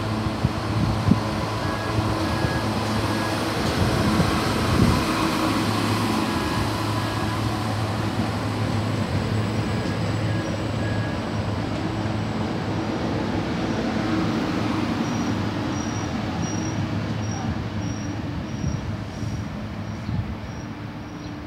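Trenitalia regional train running along the platform, its coaches rolling by with a steady wheel-on-rail rumble and a low hum. The sound thins and drops in the last few seconds as the tail end moves away.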